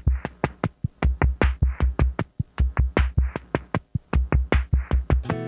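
Background music: an electronic drum-machine beat of fast, even kick-drum hits about four to five a second with snare-like hits between, and sustained chords coming in just before the end.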